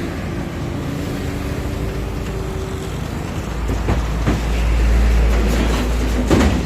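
Diesel engine of heavy construction machinery running, then rising into a deeper, louder rumble about halfway through as it works harder. A few sharp knocks, like metal clanks, come near the end.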